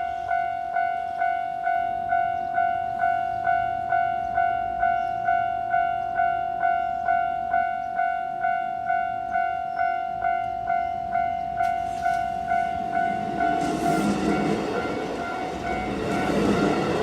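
Railway level-crossing warning bell ringing in a steady repeated ding, a little under two strikes a second. About thirteen seconds in, a train's wheels and running noise build up and take over as it approaches the crossing, while the bell fades under it.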